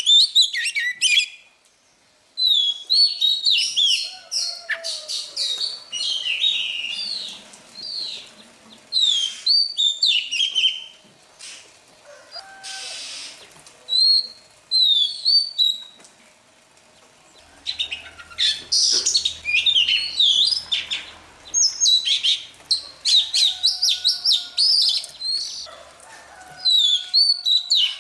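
Oriental magpie-robin singing: bouts of loud, varied, quick whistled phrases, many sliding down in pitch, broken by short pauses. There is a brief rustling burst a little before the middle.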